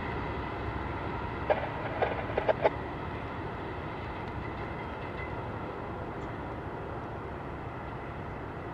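Diesel locomotive pushing a passenger train away, its engine running steadily and slowly fading, with a few sharp clicks about a second and a half to nearly three seconds in.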